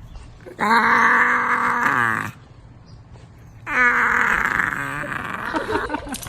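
A dog giving two long, drawn-out groaning howls, each lasting about two seconds with a short pause between.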